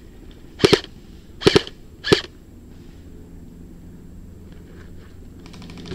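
Airsoft rifle firing three single shots, each a sharp crack, a second or less apart, in the first couple of seconds; after that only faint low background noise.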